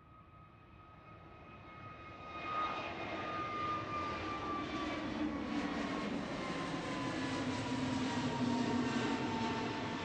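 Airbus A320neo's CFM LEAP-1A turbofan engines at takeoff thrust as the jet lifts off and climbs away. The sound builds and becomes loud about two and a half seconds in, with a high engine whine that slowly falls in pitch.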